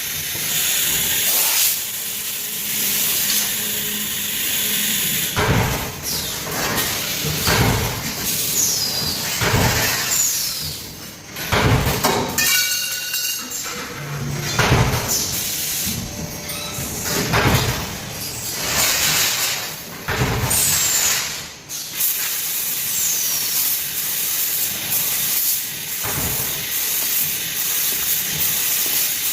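Laser tube cutting machine at work: a steady hiss of cutting, with irregular knocks and clunks of the tube stock and feed mechanism and a few brief squeaks.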